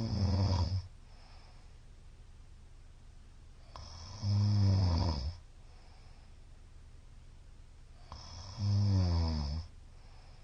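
A middle-aged man snoring loudly in his sleep: three snores about four seconds apart, each lasting about a second, the later two sliding down in pitch.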